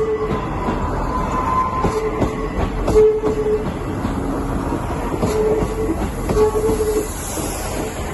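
Three-car Class 158 diesel multiple unit pulling out of the station, its wheels clicking over rail joints with short, repeated squeals about once a second.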